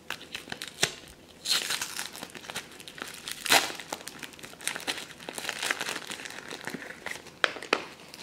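Clear plastic shrink-wrap being torn and peeled off a small plastic pumpkin-shaped toy box, crinkling and crackling in irregular fits. Two sharp clicks come near the end.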